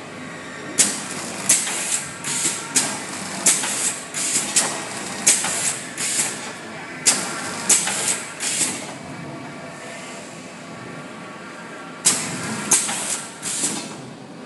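GURKI GPL-5545C papercut shrink packing machine running, its steady hum broken by a string of sharp, short hissing bursts from the pneumatic sealing head, about two a second. The bursts stop for about three seconds, then start again near the end.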